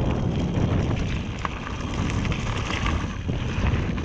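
Wind buffeting a GoPro action camera's microphone as a mountain bike rolls along a forest singletrack, with tyre noise on the dirt and scattered small clicks and rattles from the bike.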